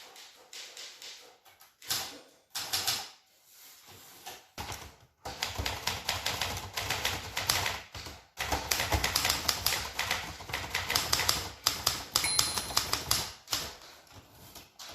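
Manual typewriters clacking under fast typing, keystrokes in quick irregular runs that come in short stretches and then run almost without pause from about five seconds in. A short high ringing tone sounds about twelve seconds in.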